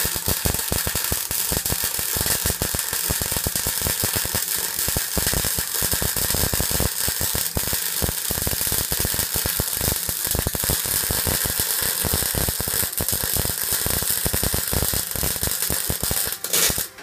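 MIG welder arc crackling and sizzling steadily as a bead is run on the steel chassis of a 1948 Bentley Mk VI; it stops shortly before the end.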